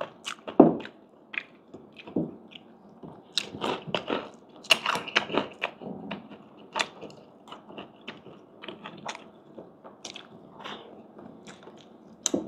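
Chewing and biting into crispy fried pork, with irregular crunches throughout.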